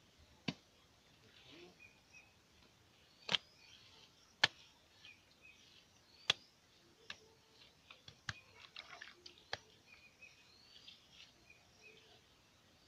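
Wet clay being worked into a wooden brick mould by hand: sharp slaps and knocks at irregular intervals, with softer taps in a cluster near the middle. Birds chirp faintly.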